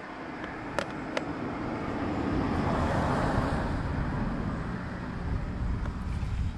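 A road vehicle passing close by: a rushing noise that swells over the first three seconds and stays loud. Two sharp clicks about a second in come from handling the plastic bait tub.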